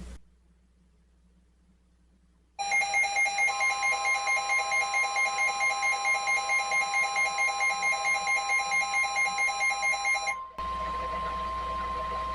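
Emergency weather alert: a weather radio receiver's alarm beeps fast, about four times a second, for about eight seconds. Under it the steady single-pitch warning alarm tone of NOAA Weather Radio comes on about a second after the beeping starts and carries on alone for a moment after the beeping stops. Both follow a brief silence after the coded alert header.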